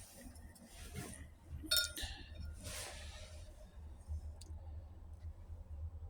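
Metal transmission parts being handled on a bench: a ringing metal clink a little under two seconds in, a short scrape, then a small tick, over a low steady hum.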